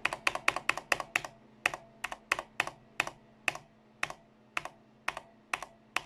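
Enter key of a mechanical keyboard with red linear switches pressed over and over, quickly at first and then slowing to about two presses a second, each stroke a sharp clack. The key has a spring sound that the owner thinks is audible.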